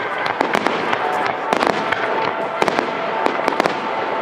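Aerial firework shells bursting in quick, irregular succession: many sharp bangs, some in rapid clusters, over a continuous crackle.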